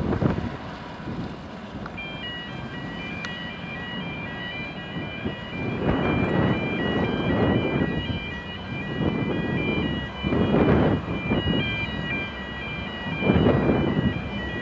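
Wind buffeting the microphone in gusts. From about two seconds in, a faint run of high steady tones changing pitch plays underneath.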